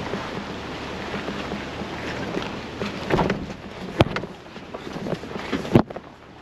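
Jeep Wrangler TJ driving over a rough, rocky dirt trail: a steady rumble of engine and tyres, with sharp knocks a few times as it goes over rocks, the loudest near the end.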